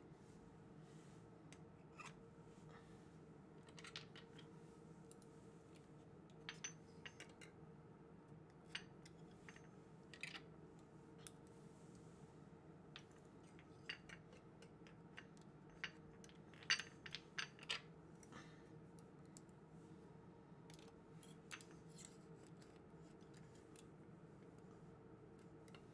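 Sparse, irregular metallic clicks and ticks from the steel needles and cylinder of a circular sock machine being handled, with a tighter cluster of louder clicks about two-thirds of the way through, over a faint steady hum.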